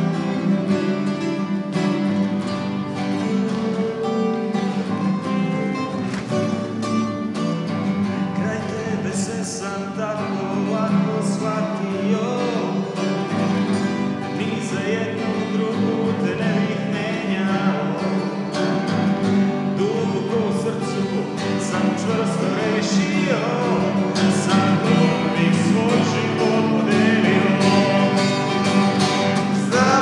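Two steel-string acoustic guitars playing together, one strumming chords while the other picks a melody, gradually growing a little louder.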